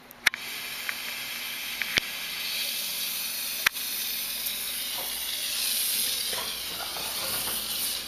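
Propane-fed soldering torch burning with a steady loud hiss while heating the fluxed billet. A sharp click just as the hiss starts, and two more sharp ticks over the next few seconds.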